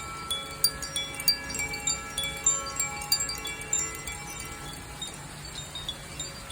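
Zaphir chime ringing: a quick flurry of bright metal rod strikes with long overlapping ringing tones, thinning out to a few faint strikes after about four seconds.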